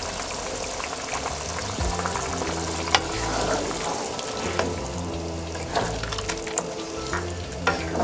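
A pan of thin vegetable curry with chopped green chillies hissing and sizzling on the heat while a spoon stirs it, knocking against the pan several times. Background music with a steady low bass line plays under it.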